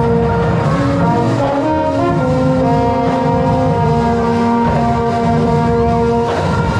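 Marching band playing, brass (trombones and trumpets) holding sustained chords that change every second or so over a steady low drum and bass pulse.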